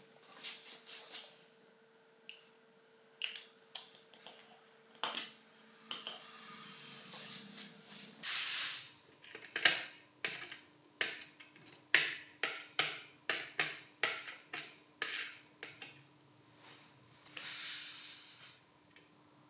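Small hard parts and tools clinking and tapping against a work surface, at an uneven pace and thickest in the middle, with two longer swishes, one near the middle and one near the end.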